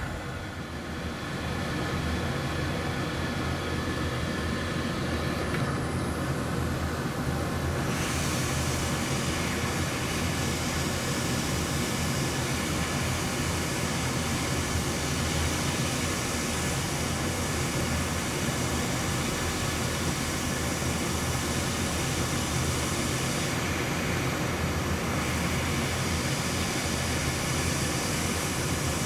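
Steady whooshing of air from a small blower at an electronics rework bench, with no speech. Twice the hiss briefly turns duller.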